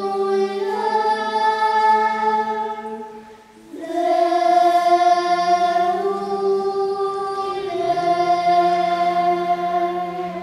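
A children's choir singing slow, long-held notes that step in pitch, with a short break for breath about three and a half seconds in. The last note fades at the very end.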